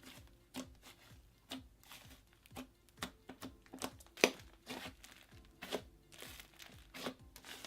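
Soft clay-based slime being squished and pressed by hand, giving irregular wet clicks and small pops, with the loudest pop about four seconds in.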